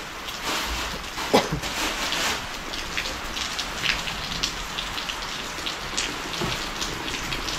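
Steady rain falling, with many close drops ticking sharply and one louder knock about a second and a half in.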